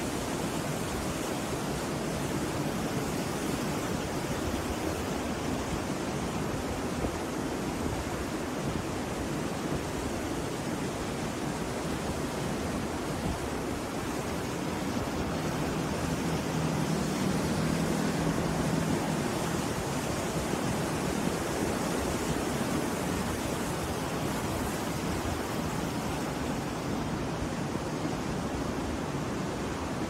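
Rough-sea surf breaking and washing up a sandy beach: a steady rushing roar of waves, swelling a little louder about halfway through.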